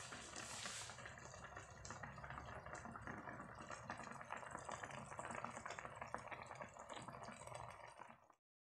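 Faint bubbling and crackling of chicken batchoy broth with misua noodles boiling in a wok; the sound stops abruptly near the end.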